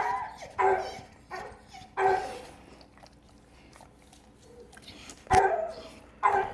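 Male dog barking loudly: four barks a little over half a second apart, a pause of about three seconds, then two more. He is worked up by a female dog in heat, and the owner puts the loudness down to his being deaf.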